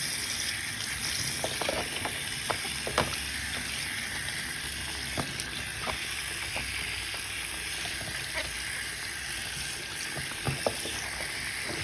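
Cold water running steadily from a tap into a sink, with occasional light knocks scattered through it.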